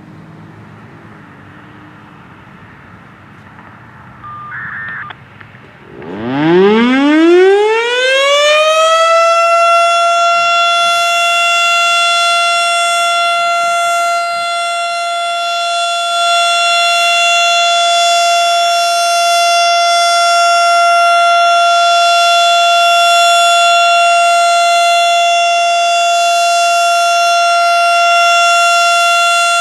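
Federal Signal STH-10 electromechanical tornado siren winding up about six seconds in, its pitch rising from a low growl to a high tone within a few seconds. It then holds one loud steady tone, the Alert signal. Just before the wind-up there is a short, quieter sound.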